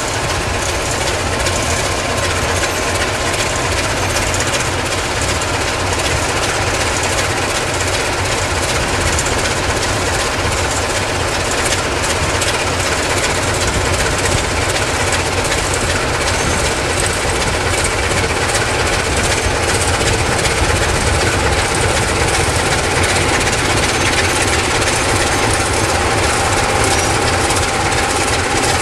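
Electroputere LDE 060-DA diesel-electric locomotive's Sulzer 12LDA28 twelve-cylinder diesel engine running under load as it slowly hauls a heavy loaded coal train while shunting: a steady, throbbing low rumble that grows a little louder in the last third.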